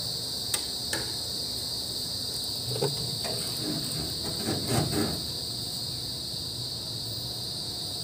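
Steady high-pitched insect chorus, with a few light clicks and knocks as a plastic washing-machine drain hose fitting is handled.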